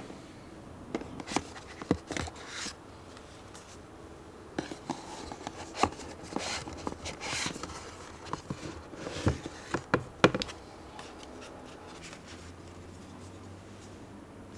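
Hands handling packaging: rustling, small clicks and light taps come and go over about ten seconds, then stop.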